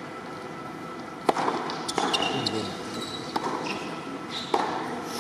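Tennis rally on an indoor hard court: a ball is struck back and forth with four sharp hits spread over the last four seconds. Each hit echoes briefly in the arena, with a few short high squeaks between the hits.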